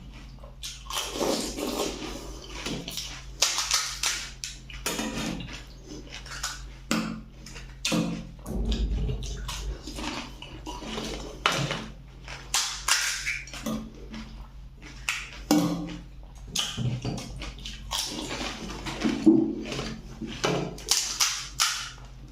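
Pani puri being eaten in a hurry: crisp puris crunching and the spiced water slurping in quick, irregular bursts.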